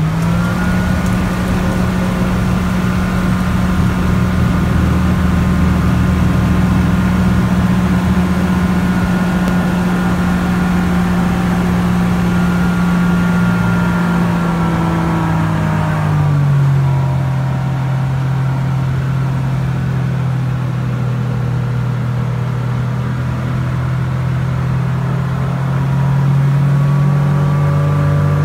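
Viking aircraft engine, a Honda-based auto conversion, droning steadily with its propeller in flight. Its pitch drops a little about sixteen seconds in and rises again near the end.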